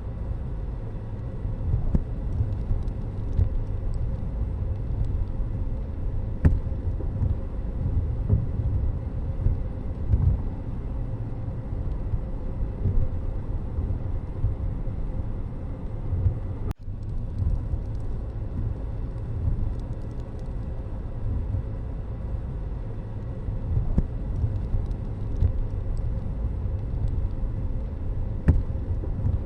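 Steady vehicle and road noise: a low, unsteady rumble, with a brief dropout just past halfway.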